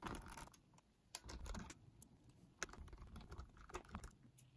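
Precision screwdriver driving small screws into the back panel of a Sanyo M3330 cassette player: faint clicking and scraping in three short bursts as the screws are turned home.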